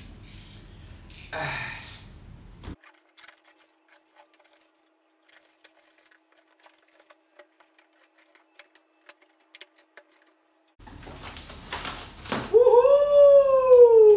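Plastic wrap and cardboard rustling as a packing box is unwrapped, then faint ticks of a box cutter slitting the packing tape. Near the end the flaps rustle open and a long high 'woooo' of delight rises and then slowly falls in pitch; it is the loudest sound.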